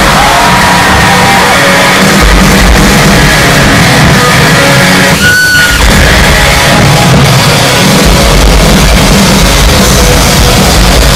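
Loud hard rock music, with a short break in the bass about five seconds in.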